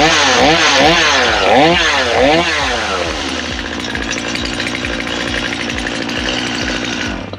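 Stihl MS250 two-stroke chainsaw, freshly cold-started, revved up and down several times in quick blips as the trigger is squeezed and released, then settling to a steady idle. The engine is switched off and stops abruptly near the end.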